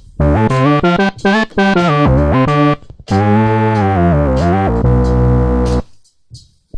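Funk synth bass from the Pure Synth Platinum software synth played on a keyboard: a run of short, punchy notes with pitch slides between them, ending on a held note about five seconds in that cuts off.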